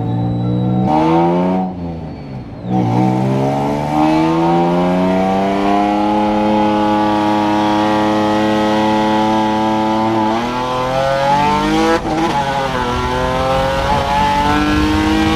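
Twin-turbo Nissan 350Z's 3.5-litre VQ35DE V6 pulling hard through the gears, heard from inside the cabin. The revs climb in long rises, with a short drop at a gear change about 2 s in and another about 10 s in.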